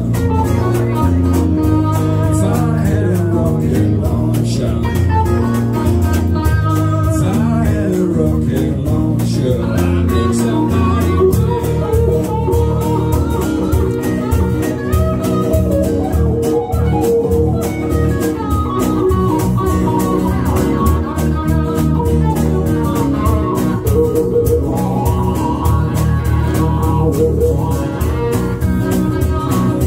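Live band music from electric bass guitar, acoustic guitar and hollow-body electric guitar playing a blues-tinged rock song.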